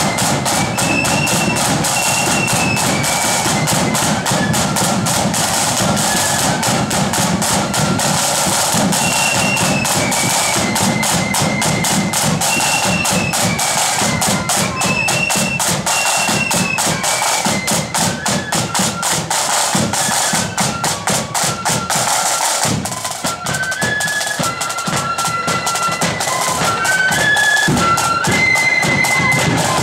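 Blood-and-thunder flute band playing a march: rapid, dense side drumming and bass drum under a high flute melody. About three-quarters of the way through the drumming thins briefly and the flute tune comes to the fore.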